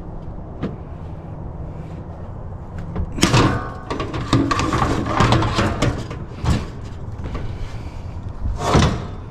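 Curbside scrap items being shoved and dropped into a vehicle's cargo bed: a run of clattering knocks and scrapes starting about three seconds in, and a loud bang near the end, over a steady low rumble.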